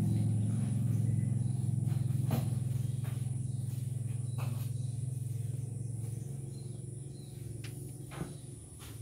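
A low, steady hum that gradually fades away, over a thin, steady high-pitched drone, with a few light clicks.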